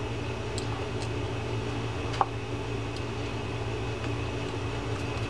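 A screwdriver tightening a case screw on a small lever drag fishing reel makes a few faint clicks, one sharper about two seconds in, over a steady low background hum.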